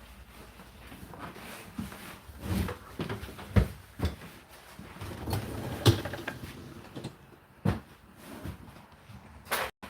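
A series of irregular knocks and clicks, with four sharper knocks spread through it, like things being handled or moved about.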